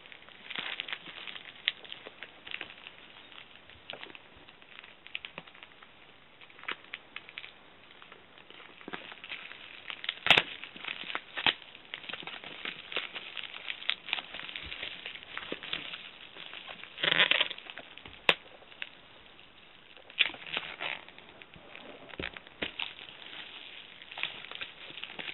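Hands picking at and pulling the tape and paper wrapping of a mail package: irregular crinkling, scratching and crackling, with a louder burst of rustling about two-thirds of the way through.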